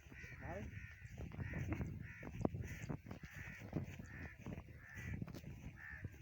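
Crows cawing over and over, short harsh calls coming about twice a second.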